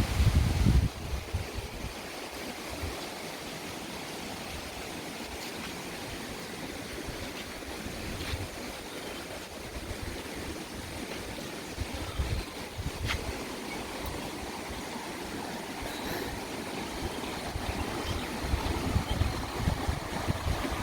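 Steady rushing of a mountain stream flowing, with irregular low rumbles underneath.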